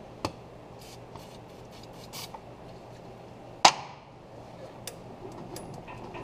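Hand tool on a seized exhaust manifold bolt in a Ford 351 Windsor cylinder head, being worked back and forth a little at a time: scattered light metal clicks and one sharp metallic clack about three and a half seconds in.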